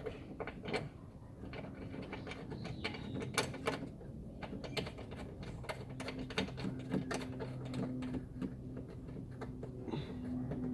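Irregular small metallic clicks and ratcheting as a bolt is fitted and turned into the B-pillar of a Ford Ka to hold the seat-belt anchor. A steady low hum comes in about six seconds in.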